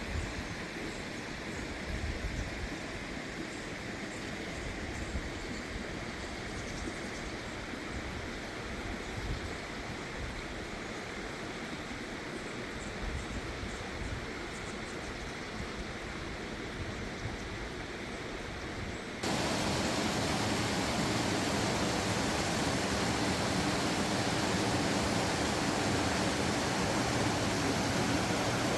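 Mountain stream water rushing over rocks as a steady noise. About two-thirds of the way through it cuts abruptly to a louder, more even rush.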